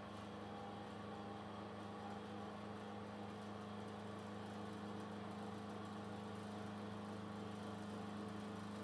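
Thojomech TFC11 CNC milling machine cutting aluminium with a 12 mm four-flute end mill: a steady hum with a few even tones over a hiss, no more than about 75 decibels on the meter.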